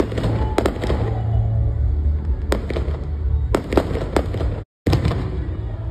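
Aerial fireworks bursting in a series of sharp bangs, some in quick pairs and triples, over a steady low rumble. The sound cuts out completely for a moment about three-quarters of the way through.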